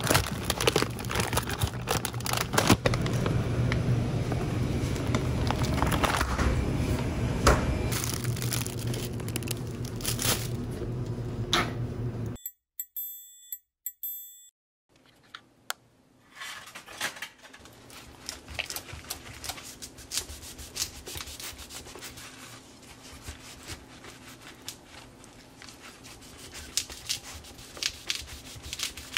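Supermarket ambience with a steady low hum and the crinkle and clicks of plastic food packs being handled. About twelve seconds in it drops out, leaving a few short high tones. It then gives way to quieter kitchen handling sounds: rustles and light knocks around a wooden cutting board as a whole pineapple is readied for cutting.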